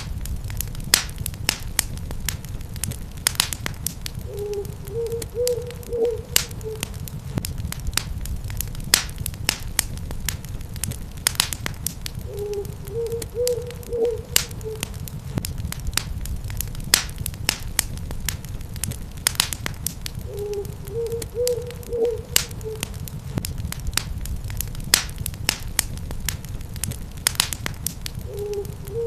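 Wood fire crackling steadily, with sharp pops over a low rumble. An owl hoots a short run of notes about every eight seconds.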